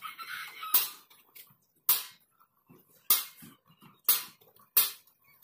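Five sharp, short snaps spaced about a second apart, made by hand work on upholstery foam padding being fitted onto a bench frame.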